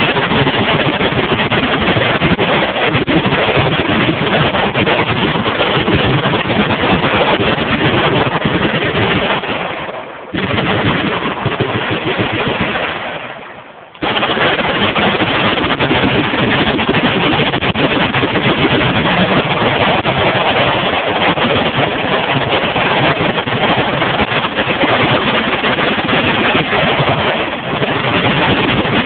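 Many machine guns firing at once in sustained automatic bursts, a dense continuous clatter of overlapping shots. It eases off briefly about ten seconds in and again around thirteen seconds in, then resumes.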